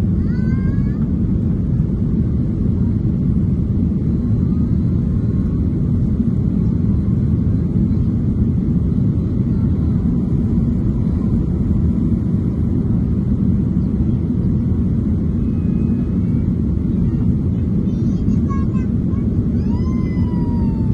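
Steady low rumble of a Boeing 737-800 in flight, its CFM56-7B engines and the airflow heard as constant cabin noise.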